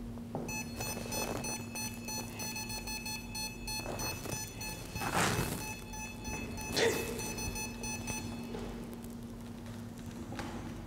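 Handheld EMF ghost meter sounding its electronic alarm, a rapid high-pitched beeping warble that starts about half a second in and stops about eight seconds in, signalling a field reading. Two louder noisy swells come about five and seven seconds in, over a low steady hum.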